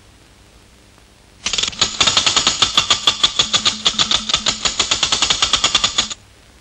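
Cartoon sound effect of a barrel organ being cranked: a fast, even mechanical rattle of several clacks a second, with no tune coming out. It starts about a second and a half in and cuts off abruptly near the end.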